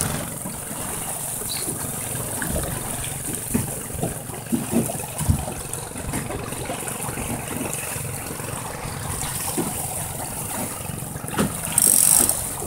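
Wind rumbling on the microphone and water rushing along a sailboat's hull, with scattered small splashes and knocks and a brief hiss near the end.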